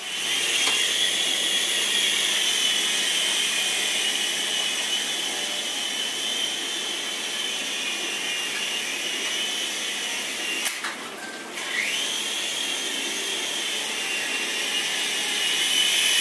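Small electric motor and rotor of a toy remote-control helicopter whining steadily in flight. About eleven seconds in the whine briefly drops away, then spins back up with a rising pitch.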